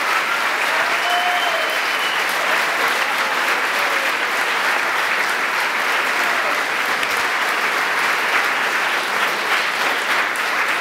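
Audience applauding steadily after a youth choir's performance: a dense wash of many hands clapping, with a few faint voices calling out over it.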